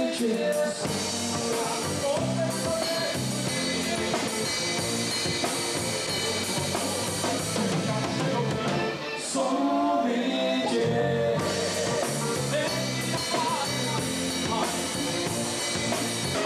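Live gaúcho dance-band music: piano accordion, electric guitar and drum kit playing together, with a short break about nine seconds in before the band comes back in full.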